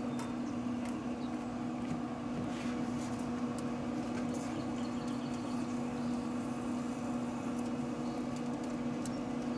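Steady hum of a running Pit Boss pellet grill, its fan holding the grill at temperature, with a few faint light clicks.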